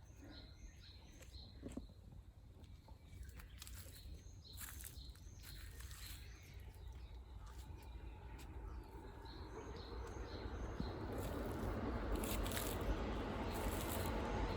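Forest ambience: small birds give short, high chirps over a low steady rumble. Through the second half a rushing noise grows steadily louder.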